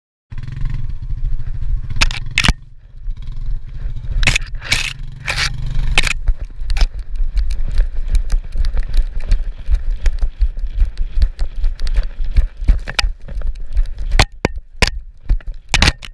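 Noise from a GoPro strapped to a running dog's back: a low rumble with a rapid run of knocks and scrapes as the camera and harness jostle with its strides. An ATV engine runs just ahead for the first several seconds and fades out about six seconds in.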